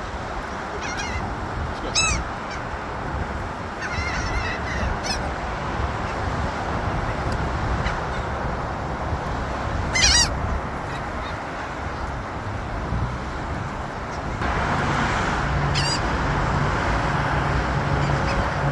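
Gulls calling: several short, high, yelping calls, spaced a few seconds apart, over steady outdoor background noise that grows louder about three quarters of the way through, joined by a low hum.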